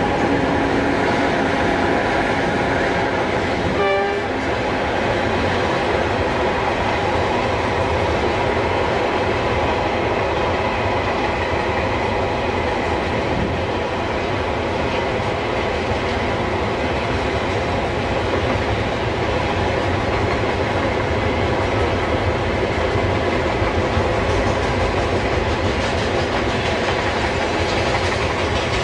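Freight train of tank wagons rolling past close by behind an Alstom 8K electric locomotive, with continuous loud wheel-on-rail noise. A short horn blast sounds about four seconds in.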